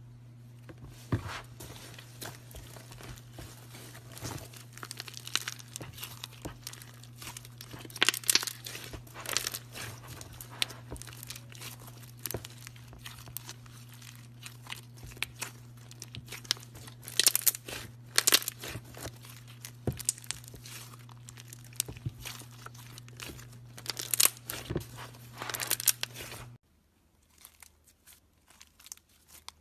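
Slime being squeezed, stretched and pressed by hand, giving irregular wet crackles and pops, with a few louder snaps. A steady low hum runs underneath and cuts off abruptly near the end, leaving only faint clicks.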